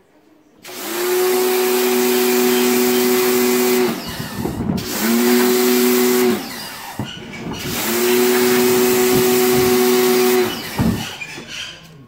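Small electric pressure washer running in three spells of about one to three seconds, its pump motor humming steadily under the hiss of the water jet, and winding down each time the spray stops. It is blasting dirt off a washing machine's plastic outer tub.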